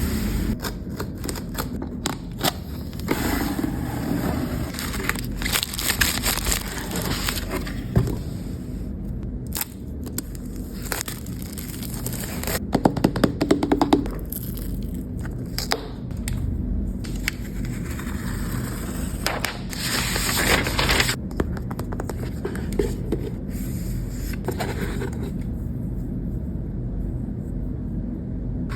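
An iPad's cardboard box and plastic packaging being handled and opened: scraping, crackling and scattered clicks, with a quick run of ticks about thirteen seconds in.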